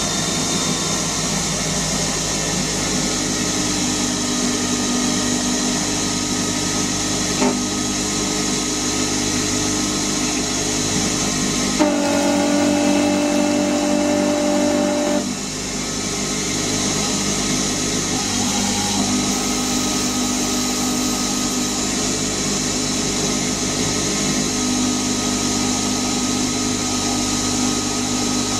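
CNC lathe running, a steady machine whine with several constant tones over a hiss. About twelve seconds in, a stronger, higher tone comes in with a click and stops abruptly about three seconds later.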